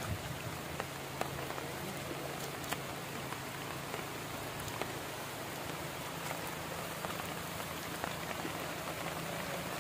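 Water pattering steadily, an even hiss with a few scattered small ticks and drips.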